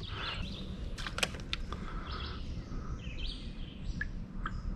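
Faint outdoor ambience on a wooded river: a steady low rumble with faint bird calls and a few light clicks.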